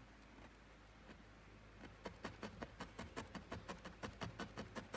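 A felting needle stabbing into white wool on a felting pad, compacting a flat piece from the middle. It makes faint, quick, even pokes, a few at first, then a steady run of about five or six a second from about two seconds in.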